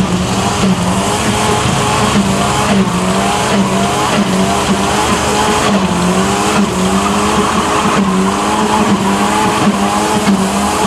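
Rear-wheel-drive Volvo estate doing a rolling burnout: the engine is held high in the revs while the spinning rear tyres squeal and hiss. The pitch keeps wavering up and down.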